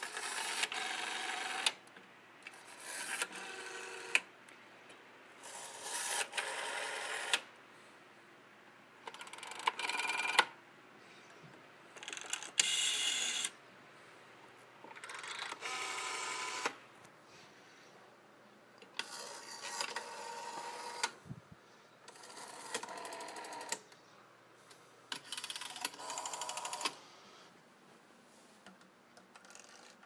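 Rotary telephone dials being pulled round and whirring back to rest, digit after digit: about ten spins, each a whir of a second or two, separated by short pauses.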